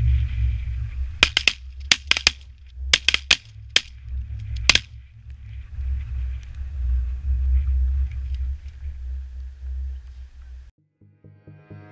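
A ragged volley of about ten 12-gauge shotgun shots from several hunters, fired at incoming Canada geese between about one and five seconds in. A steady low rumble of wind on the microphone runs underneath, and the sound cuts out near the end.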